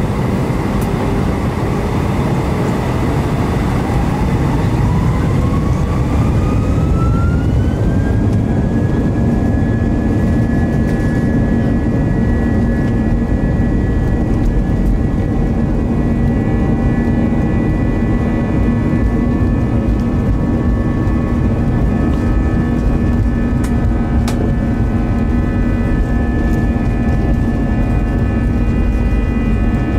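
Airbus A320's IAE V2527-A5 turbofan engines heard inside the cabin, spooling up to takeoff thrust. A whine rises in pitch over the first eight seconds or so, then holds steady over a loud low roar through the takeoff roll.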